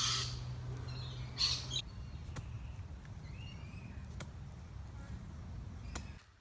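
Faint bird calls over a steady low rumble, with two brief harsh hissy calls near the start; the sound cuts off just before the end.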